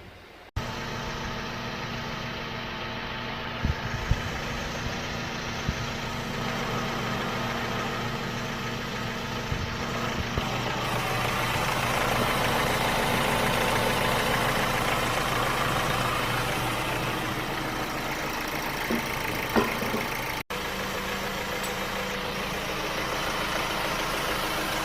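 Chevrolet 1.6 four-cylinder diesel engine idling steadily, getting slightly louder in the middle and easing back, with a few faint clicks over it.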